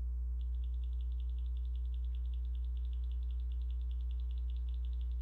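Steady electrical mains hum, with a rapid high pulsing beep, about ten pulses a second, coming in just after the start and running on while the simulated lathe's Z axis is jogged.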